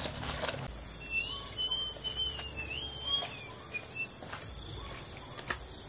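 Insects chirring in a steady high-pitched drone, with a bird's wavering, warbling call over it for a few seconds from about a second in.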